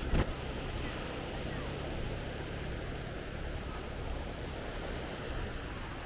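Steady wash of sea waves breaking on the shore, with a short loud thump just after the start.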